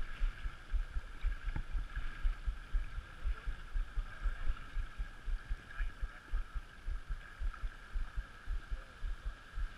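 Steady rush of flowing creek water, with frequent low irregular thumps and buffeting on the microphone.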